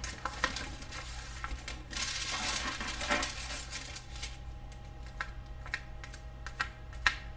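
Thin clear plastic cover film on a diamond painting canvas crinkling and crackling as it is lifted and handled by hand, with scattered small clicks.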